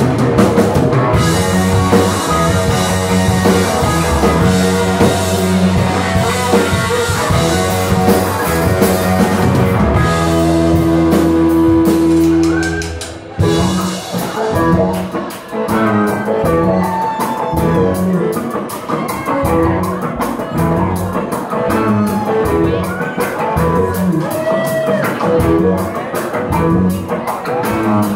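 Live rock band playing amplified electric guitars, bass and drum kit. About halfway through, a long held note breaks off and the music dips for a moment, then the band carries on with a lighter, choppier groove.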